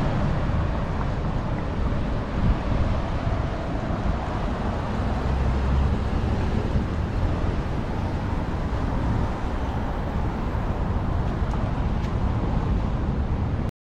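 Wind buffeting the microphone over the steady noise of road traffic.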